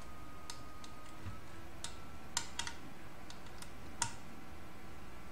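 Light, irregular metal clicks of a hand tool working a loose bolt on the Printrbot Simple Metal's metal frame, about six in all, the loudest a little over two seconds in and about four seconds in.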